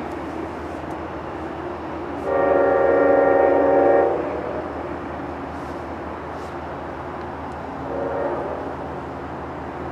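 A train's chord horn sounds one long blast of about two seconds. A shorter, weaker blast follows about four seconds later, over a steady background rumble.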